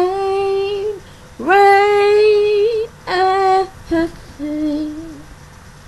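A woman singing alone, holding several long sung notes that each scoop up into pitch, with short breaths between them and the last notes softer.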